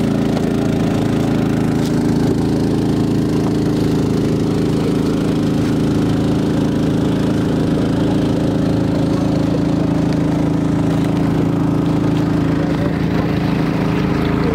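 Long-tail boat engine, a 7.5 hp 208 cc single-cylinder four-stroke petrol engine, running at a steady, constant speed while driving the boat through the water.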